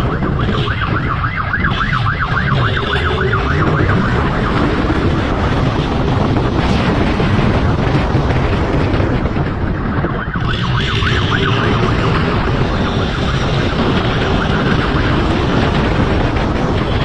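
Wind rushing over the microphone of a police motorcycle riding at speed, with its engine running underneath. A siren warbles rapidly twice, about a second in and again around ten seconds in.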